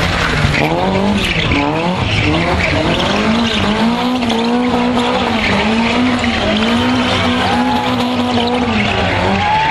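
Rally car spinning doughnuts: its engine revs hard in quick rises and falls, then holds high revs with a wavering pitch through the middle, while the tyres squeal and scrub on the cobblestones.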